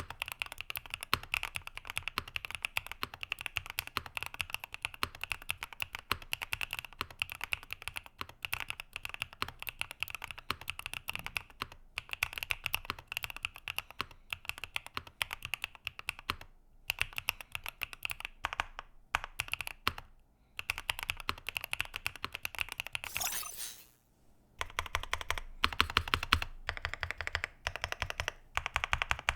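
Fast typing on a Class 0413 custom mechanical keyboard: dense runs of key clicks broken by a few short pauses. The keystrokes carry more low thump in the last few seconds.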